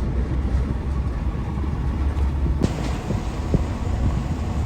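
Steady low rumble of a vehicle driving on the road: engine and tyre noise.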